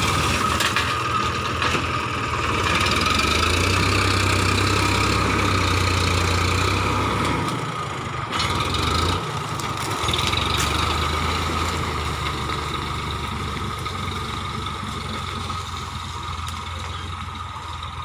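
Tractor's diesel engine running steadily as it drags a cultivator frame with a root-cutting blade through the soil of an okra field, dipping briefly about eight seconds in.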